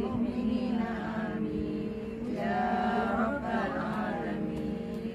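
A group of women's voices chanting a Quranic Arabic recitation in unison, holding long, drawn-out notes, with a fuller, louder swell in the middle.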